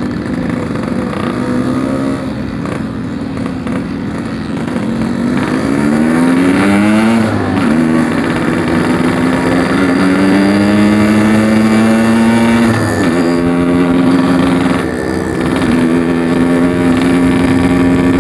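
Yamaha RX-King's 135cc two-stroke single-cylinder engine accelerating under way: its pitch climbs steeply, drops at an upshift about seven seconds in, climbs again more slowly, drops at a second upshift near thirteen seconds, then holds steady at cruise.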